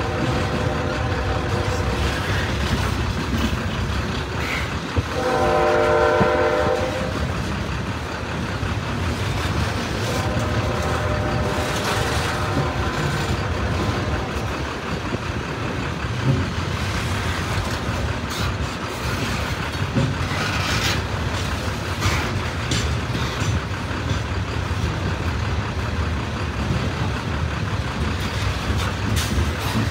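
Open-top CSX hopper cars rolling past, with steady wheel-on-rail noise and clicks. A train horn sounds faintly at the start, louder for about two seconds around five seconds in, and faintly again around ten to thirteen seconds.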